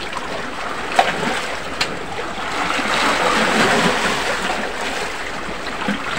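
Sea waves washing against a rocky shore, a steady rushing that swells a few seconds in, with two sharp clicks of oyster shells being handled about one and two seconds in.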